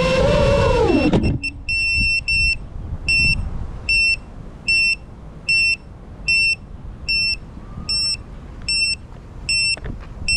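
FPV drone's motors whine and then spool down to a stop about a second in. After that the landed drone's beeper gives a short high beep roughly every 0.8 seconds.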